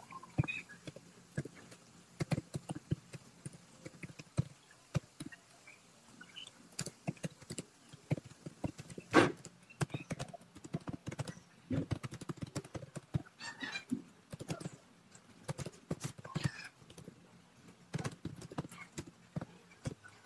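Computer keyboard typing: a run of irregular key clicks, several a second, with a louder stroke about nine seconds in.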